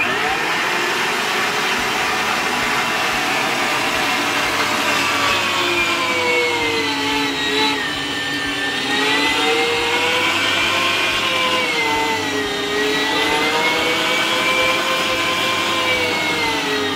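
Electric meat grinder running loudly while mincing pork fat, its motor whine wandering in pitch and dipping twice, around the middle and again a few seconds later.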